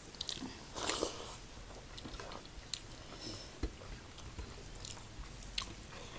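Close-miked chewing and biting of food, with scattered small clicks and a louder noisy bite about a second in.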